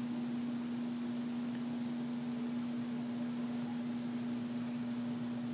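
A steady hum on one unchanging pitch over faint room hiss.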